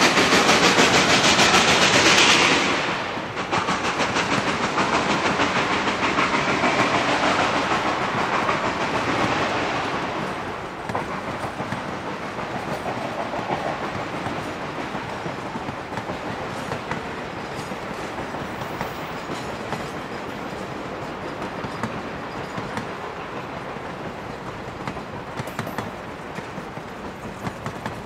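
Passenger coaches of a train rolling past on curved track, their wheels clicking over the rail joints. The sound is loudest for the first couple of seconds, drops, drops again about ten seconds in, and then fades slowly as the cars go by.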